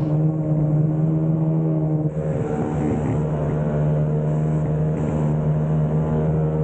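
Go-kart motor running at speed, heard from the driver's seat, with a steady, nearly unchanging pitch as the kart goes through a corner on an indoor track.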